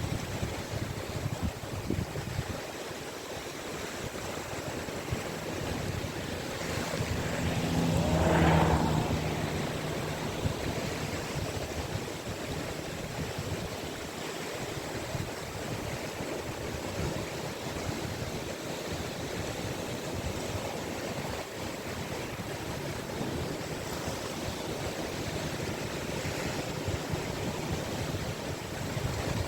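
Sea waves breaking and washing onto a beach in a continuous wash, with one wave building up and crashing loudest about eight seconds in.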